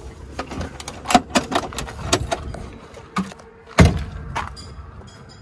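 Seat and engine cover in a Tata Ace Gold cab being handled and lifted: a run of clicks, knocks and rattles, with one louder thump a little before four seconds in.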